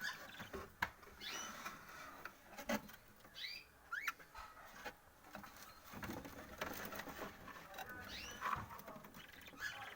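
Small cage birds giving short chirps several times, with light taps and scratching as they move about the cage.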